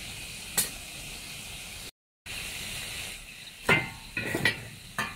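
Split firewood burning in the firebox of a wood stove: a steady hiss with scattered sharp pops and crackles, which come thicker in the second half. The sound cuts out briefly about two seconds in.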